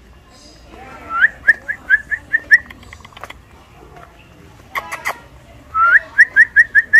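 A person whistling to call dogs over: two runs of quick rising whistles, each opening with a longer upward sweep and followed by about seven short chirps at roughly five a second. The second run comes near the end.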